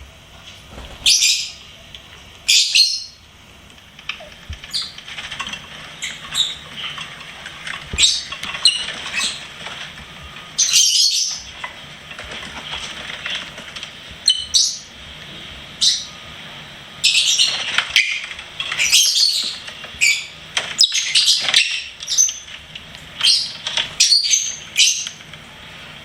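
Lovebirds chirping: many short, high, sharp calls in irregular flurries, busiest in the last third.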